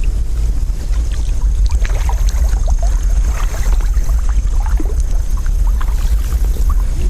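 Heavy wind buffeting the microphone: a rough, uneven low rumble. A scatter of short, high chirping sounds runs through the middle.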